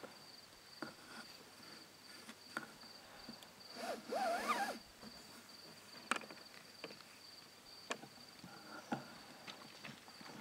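Night ambience of a steady, high-pitched insect trill with scattered faint clicks. About four seconds in, a rhino gives one short, wavering squeal over a breathy hiss.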